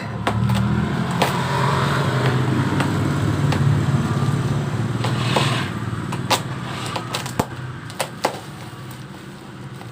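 A steady low engine-like hum that weakens after about six seconds, with scattered sharp clicks and taps.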